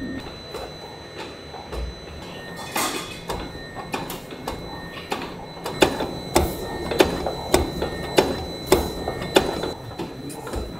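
Production-line machinery running in a food factory, with a steady background hum and, from about halfway through, a regular clack about one and a half times a second.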